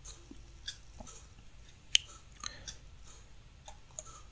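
Faint, irregular computer mouse clicks and scroll-wheel ticks, a dozen or so short clicks with the sharpest about two seconds in, over quiet room tone.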